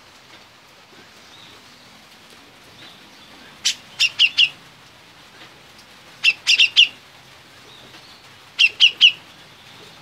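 Grey-cheeked bulbul (cucak jenggot) singing three short, loud phrases of four or five sharp notes each, about two and a half seconds apart.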